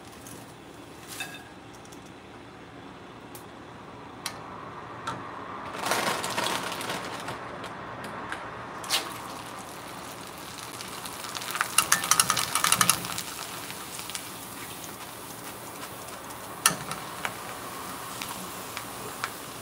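Dried fryums deep-frying in hot oil inside a wire-mesh strainer dipped in a wok: a swell of sizzling about six seconds in and a louder spell of crackling around twelve seconds as they puff up. A few sharp metallic clicks of the strainer against the pan.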